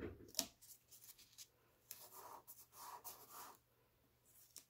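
Faint rustling and rubbing of hands smoothing a cotton quilt block down onto batting and stabilizer in an embroidery hoop, with a few small clicks and scrapes.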